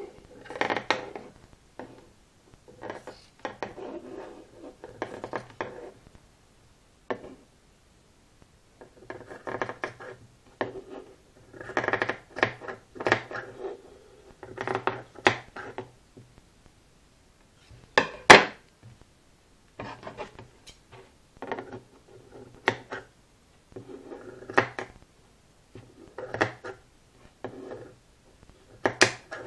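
Hands handling small hard objects: irregular scraping and rubbing a second or two at a time, with scattered clicks and one sharp knock partway through.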